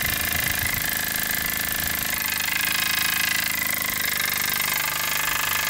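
Miniature oscillating-cylinder engine in a steam walking cane running fast on compressed air at about 4 psi: a rapid, even chuffing from its exhaust with a steady hiss of air.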